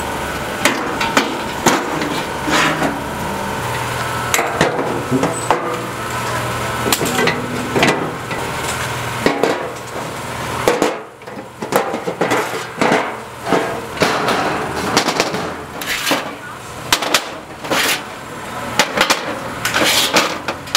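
Irregular metal clanks and knocks as steel table tops, cast-iron gas burners and steel wind-guard rings are handled and set down on metal tables. A steady low engine hum runs underneath and stops about halfway through.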